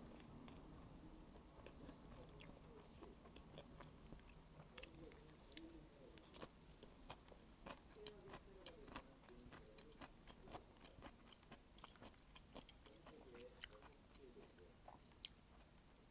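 Faint close-up eating sounds: a person chewing and biting through a bowl of malatang, with many small wet mouth clicks.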